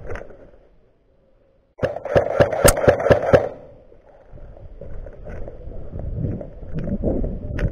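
Airsoft gun firing a rapid string of about ten sharp shots over a second and a half, after a brief near-silent gap, followed by rustling movement.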